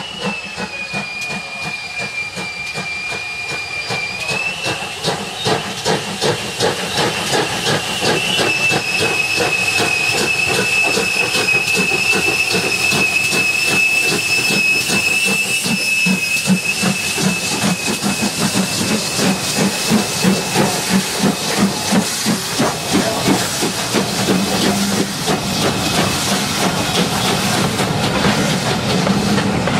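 Double-headed steam train led by GWR City class 4-4-0 No. 3717 'City of Truro' approaching and passing, with rapid steam exhaust beats and a long steam whistle held for about twenty seconds, stepping up slightly in pitch twice in the first few seconds. In the last seconds, wheel clatter from the passing coaches comes through in a steady rhythm.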